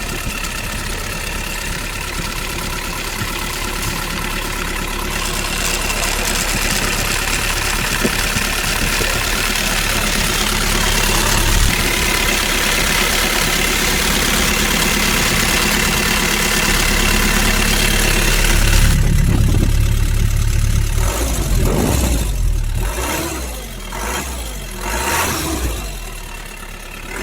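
A small motor running steadily. About two-thirds of the way through, the sound changes to uneven surges that rise and fall several times.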